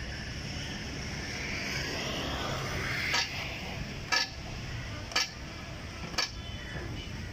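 Four sharp metallic strikes, evenly about a second apart and each ringing briefly, from hammering on a truck's rear wheel during tyre work.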